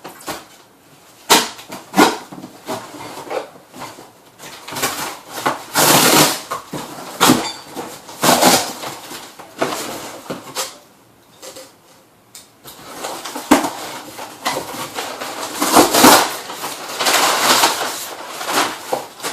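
Cardboard boxes and packaging being opened and handled: a few sharp knocks near the start, then repeated bursts of scraping, rustling and tearing.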